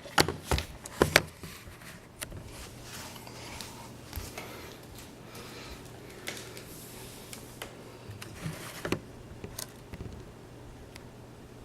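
Sharp knocks and clicks of a camera being handled and set down, followed by scattered faint knocks and rustles over a steady low hum.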